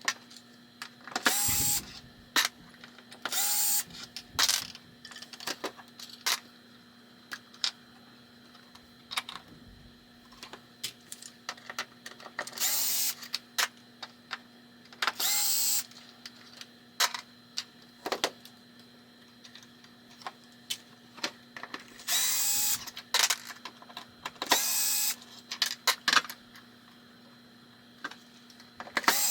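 Power drill-driver running in short bursts of about a second, several times over, backing fasteners out of a pinball playfield's plastics. Small clicks and taps of parts being handled come between the bursts.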